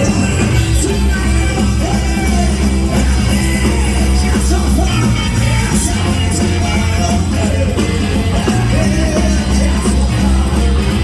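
Live blues-rock band playing loudly, with drums, bass and guitar under a singing voice.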